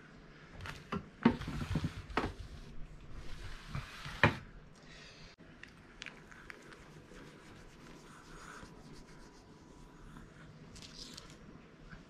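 A flat floor mop and a Chihuahua's paws scraping and knocking on a wooden floor as the dog plays at the mop. There is a burst of scrapes and knocks in the first few seconds, with sharp knocks about a second in and about four seconds in, then only light clicks.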